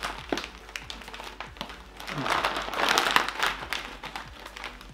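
Plastic crisp packet crinkling and crackling as hands pull hard at its sealed top, trying to tear or pop it open. The packet is strong and does not give. The crackling grows louder about halfway through.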